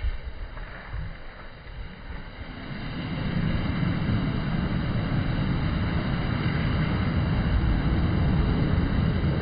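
Sea waves breaking and washing up a pebble beach, the surf growing louder about three seconds in and then holding steady.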